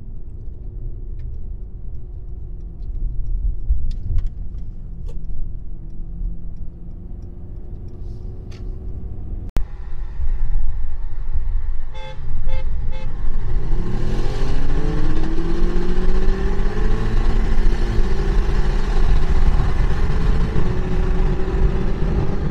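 Twin-turbo V8 sports sedan at a low rumble, then a few short beeps, then the engine pulling hard under full acceleration with its pitch rising steadily, with a brief step near the end.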